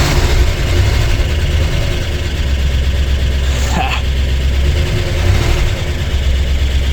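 1958 Oldsmobile 88's Rocket V8 running steadily just after catching, on its first runs after being revived as a barn find on new plugs, wires and coil.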